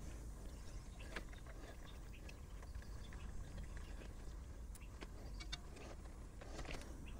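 Faint rustling and scattered small clicks of a plastic-sheathed sensor cable and its connector being handled and fed in beside a truck's gearbox, over a low steady background hum.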